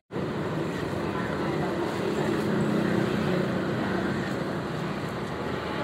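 A motor vehicle running past on the road, getting louder toward the middle and then fading, over a low murmur of people.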